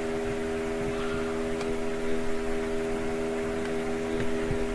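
Steady electrical hum made of several even pitches, background room tone of the recording.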